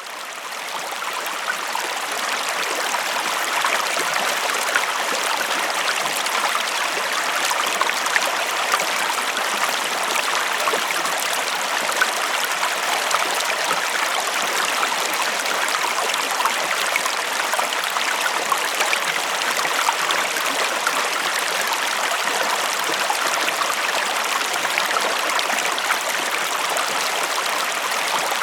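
Small river stream flowing steadily over stones, a continuous babble and splash of water that fades in over the first second or two.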